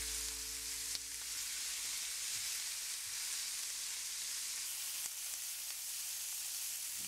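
Chicken meatballs with sliced onion, carrot and celery sizzling steadily in a stainless steel frying pan as they are stirred with a silicone spatula.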